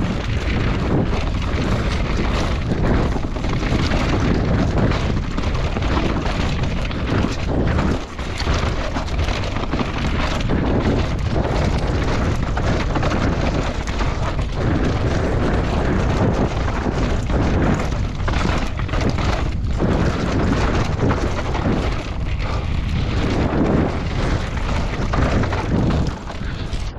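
Wind rumbling on an action camera's microphone over the roar of mountain-bike tyres on a dirt trail at speed, with knocks and rattles from the bumps.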